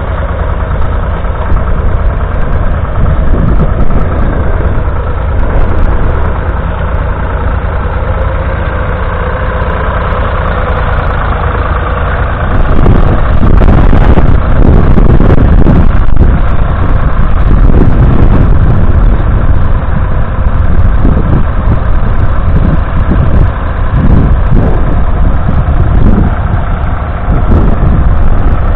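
Ford Dexta 2000 tractor's four-cylinder diesel engine running steadily, getting louder about twelve seconds in.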